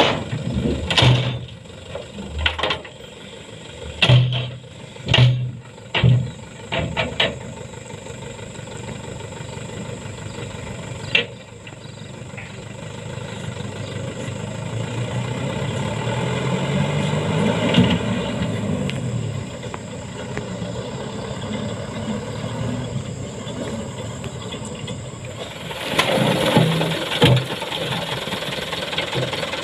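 Diesel tipper trucks unloading sand-and-stone fill. In the first few seconds stones slide off the raised bed with several loud clatters and clunks. Then a truck engine revs up and falls back as it pulls away, and near the end a second load of stones pours out over a tailgate in another rush of clatter.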